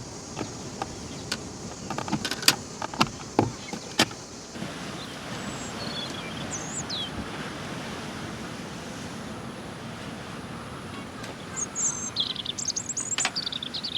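A few sharp clicks and knocks of things being handled, then small birds chirping in short high calls over a steady outdoor noise, with a cluster of chirps near the end.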